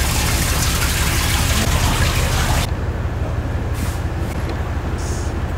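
Steady low hum of ship machinery, with a broad hiss over it that cuts off suddenly about halfway through.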